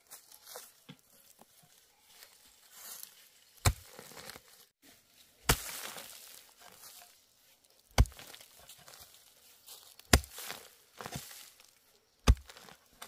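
A hoe blade striking into the soil five times, about every two seconds, while digging out a bamboo shoot, with dry bamboo leaves rustling and scraping between the strokes.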